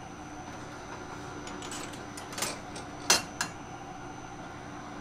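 Automatic cookie-baking machine running with a steady mechanical hum. A few sharp metal clacks from its cast-iron molds come about halfway through, the loudest about three seconds in.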